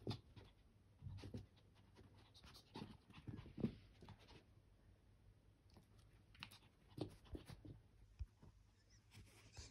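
Faint, scattered scuffles and soft knocks from a small dog moving about on carpet.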